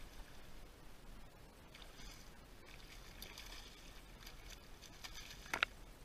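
A hooked bass splashing and thrashing at the surface beside a kayak, with one sharp, louder hit of water near the end.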